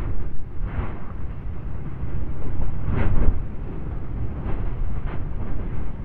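Lava fountain of an erupting volcanic crater: a continuous deep, thunderous rumble broken by several short, sharper bursts. The strongest burst comes about halfway through.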